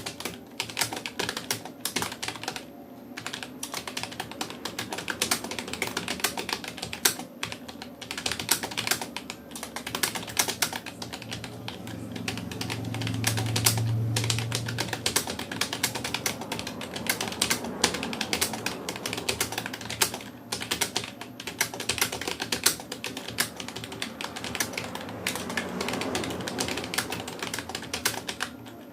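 Rapoo computer keyboard typed on fast and continuously during a timed typing test, a quick run of key clicks at roughly 57 words per minute with only brief pauses.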